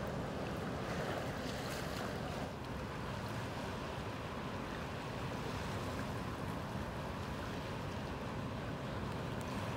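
Ocean surf washing in among shoreline rocks and tide pools, a steady rushing noise, with wind rumbling on the microphone.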